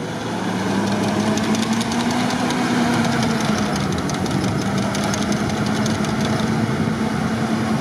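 UAZ-469 engine running steadily under load as the 4x4 ploughs through deep snow, its pitch lifting slightly a couple of seconds in and then holding.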